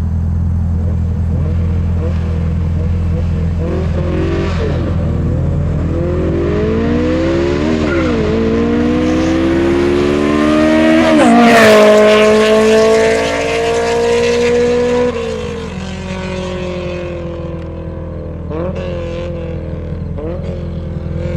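Honda S2000 engine revving hard as the car accelerates past. Its pitch climbs, dips once on a shift, then climbs again to the loudest point, and drops sharply as the car goes by and pulls away. Near the end come a few short rev blips, fainter.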